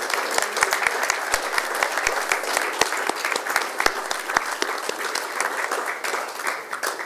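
Audience applauding: many hands clapping together, easing off a little near the end.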